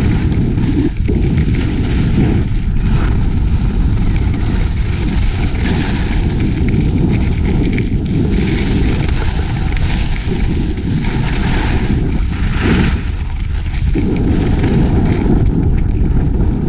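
Wind rushing and buffeting over the camera microphone during a downhill ski run, with the hiss of skis sliding on snow. It eases briefly about two-thirds of the way through.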